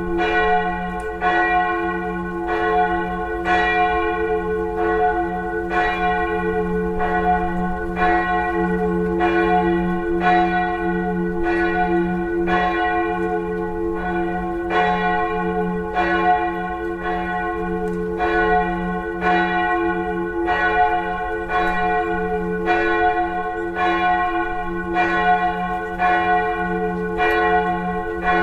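Church tower bells ringing in a steady, even run of strokes, each well under a second apart, with the deep hum of the bells sounding on between strokes.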